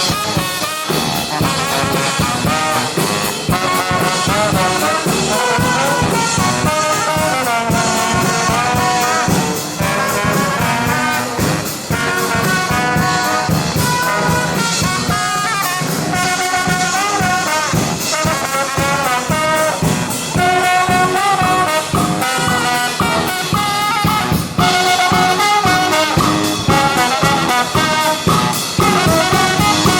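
Brass band playing live, the horns carrying the melody over a steady drum beat.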